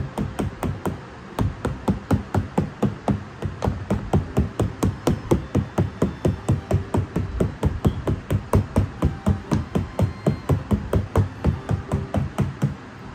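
A fork jabbing repeatedly into pie-crust dough pressed into a metal baking pan, tapping the pan at about four to five strokes a second until just before the end. This is the crust being pricked (docked) before it is baked.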